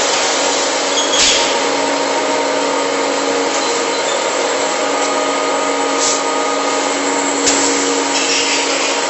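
Pellet bag packing machine line running: a steady mechanical noise with a constant hum, broken by two sharp clacks, about a second in and again near the end.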